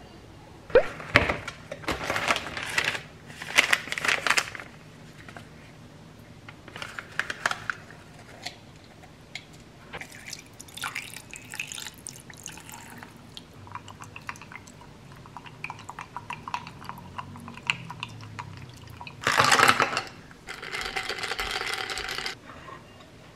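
Water poured into a glass tumbler over a tea bag and a dried lime slice, among several short bursts of clinking and knocking as ice and glass are handled.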